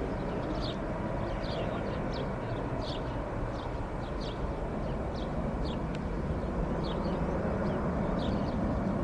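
Steady, distant rumble of an Airbus A320's jet engines after takeoff, with small birds chirping in short, falling notes about once or twice a second.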